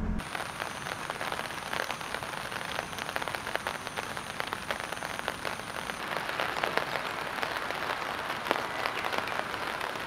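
Steady rain falling, a dense patter of many small drops.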